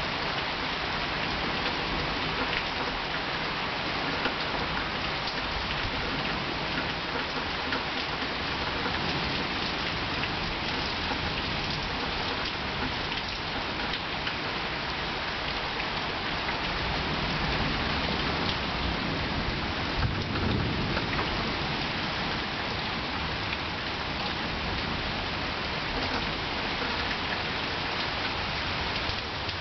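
Steady rain pattering down in a summer thunderstorm, with a low roll of thunder that swells and fades a little past the middle.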